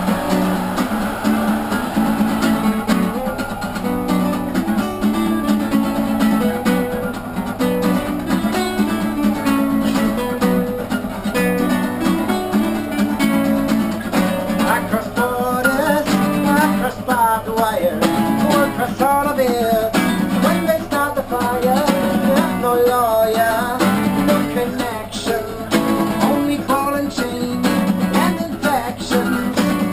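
Two acoustic guitars strummed together in a steady rhythm, with a man's voice singing a wavering melody over them from about halfway through.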